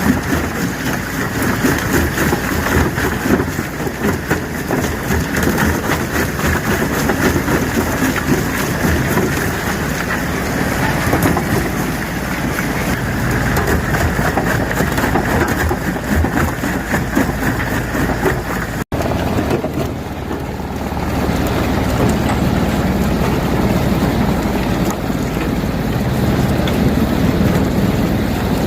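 Stone crusher running loudly as it crushes rock, a dense mix of machine noise and rapid knocking of stone. About two-thirds through the sound drops out for an instant, then continues steadier and lower.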